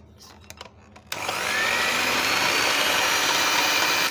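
Electric hand mixer switched on about a second in after a few light clicks: its motor whine rises briefly, then runs steady as the beaters churn sugar and oil.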